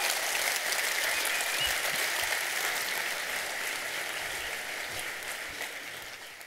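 Audience applauding, a dense even clapping that fades out gradually over the last few seconds.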